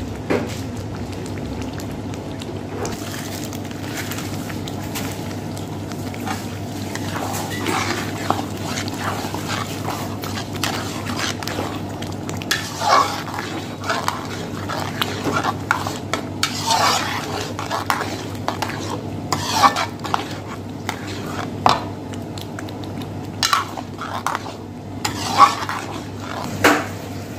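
Metal ladle scraping and clinking against a metal kadai while stirring thick curry gravy with green peas, in irregular strokes that come more often in the second half. A steady low hum runs underneath.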